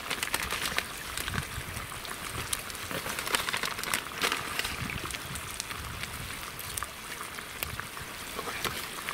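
Pot of beans sizzling on campfire embers: a steady hiss with frequent small crackles.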